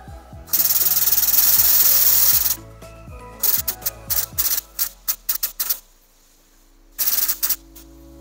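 Shop press run in two spells of loud, rasping noise, the first about a second and a half long and the second short near the end, as it presses a seal into a Dana 300 front output retainer. A run of quick metal clinks falls between them, and music plays in the background.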